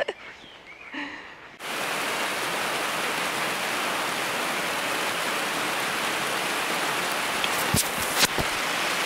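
Heavy rain falling steadily, cutting in suddenly about a second and a half in. A few sharp taps near the end.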